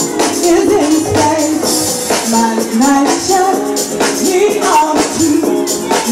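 A live female vocal belting a soulful house-music dance track over a steady beat, played through big stage loudspeakers.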